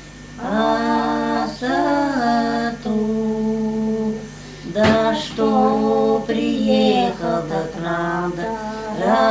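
Women's voices singing a Russian village bridal lament song unaccompanied, in slow, drawn-out held notes with short breaks for breath.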